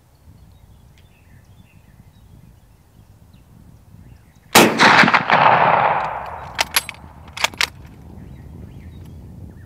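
A single rifle shot from an 11mm Mauser Model 71/84 about halfway through, with a long rolling echo that fades over a second or so. It is followed by two quick sets of metallic clicks as the bolt is worked to eject the case and chamber the next round.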